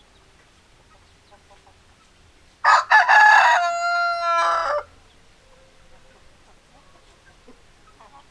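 A rooster crows once, loudly, for about two seconds: a choppy start, then a long held note that drops away at the end. Faint hen clucking sits in the background.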